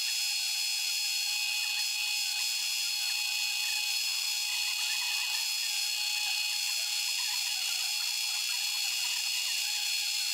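Drill press spindle running at constant speed as a twist drill bores into a metal part held in a vise: a steady high-pitched machine whine.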